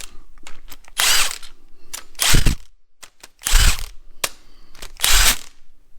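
Cordless power tool running in four short bursts, each about half a second long and a second or so apart, spinning out triple-square cylinder head bolts. Light metallic clicks come between the bursts.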